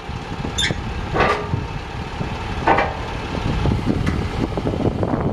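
International DT530 diesel engine of a digger derrick truck running with a steady low rumble. A few short squeaks and creaks from the hydraulic boom come about half a second in, at about a second, and near three seconds.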